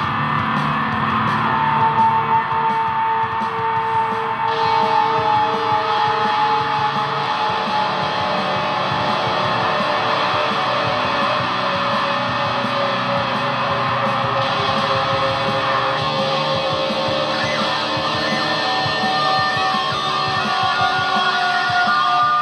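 Electric guitar played through effects pedals: long held, overlapping notes that sustain and drift slowly in pitch, at a steady level. The tone brightens about four seconds in and again about halfway through as the pedal settings change.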